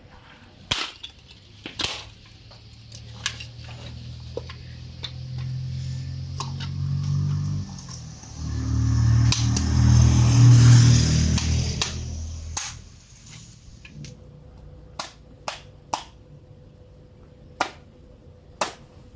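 Dry coconut shells being cracked apart by hand, a string of sharp separate cracks. Over the middle of it a low engine drone swells and fades away.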